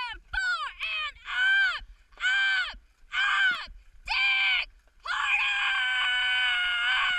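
High-pitched shouted calls pacing a dragon boat crew's paddle strokes: short quick calls at first, then slower, longer ones, and one long held yell starting about five seconds in.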